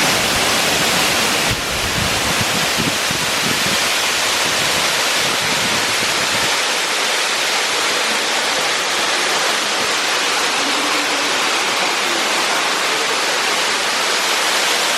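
Waterfall: the steady rush of falling water. A low rumble underneath drops away about six and a half seconds in.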